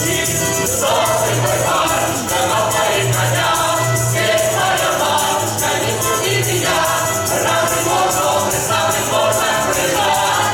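A Cossack folk song ensemble singing a song in chorus, with many voices together over a steady, evenly pulsing rhythmic accompaniment.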